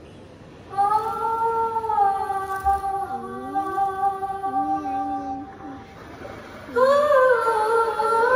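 Show soundtrack: a woman's voice singing long held notes, wordless, with a lower melodic line moving beneath, starting about a second in. A new, more ornamented sung phrase begins near the end.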